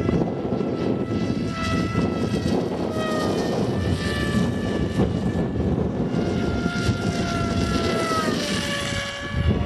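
Electric motor and propeller of an AXN Floater RC model plane whining in flight, the pitch drifting and dropping near the end as the plane passes. Heavy wind buffets the microphone throughout.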